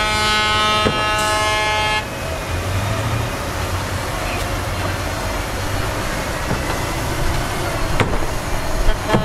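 A truck horn sounds a steady blast for about two seconds. Heavy diesel machinery then runs steadily underneath, with a sharp click near the end and a second horn blast starting just as the sound closes.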